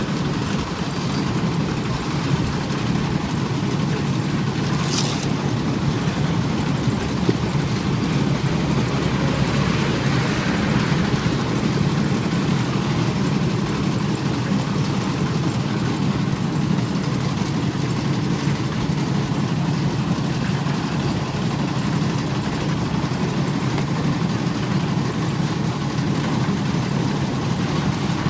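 Old diesel engine running steadily, driving a cement mixer. There is a brief high-pitched sound about five seconds in.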